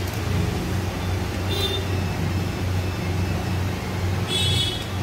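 Steady low hum of running commercial kitchen machinery, with two short high-pitched sounds, one about a second and a half in and one near the end.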